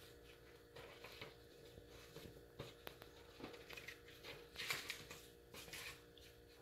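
Faint snips of scissors cutting construction paper, with a louder rustle of the paper sheet being lifted and turned a little past halfway through.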